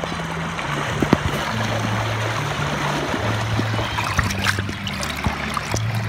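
Pool water churning and splashing close to the microphone, a steady rushing with a few small splashes. A low bass line of background music runs underneath.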